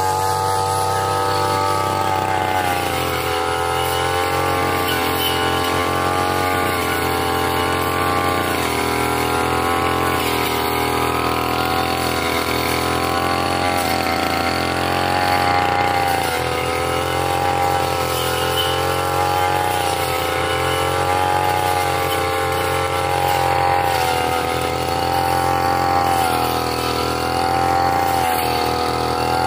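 Backpack brush cutter's small petrol engine running at high speed while its circular blade cuts grass and saplings. The engine note sags and recovers every few seconds as the blade bites into the growth.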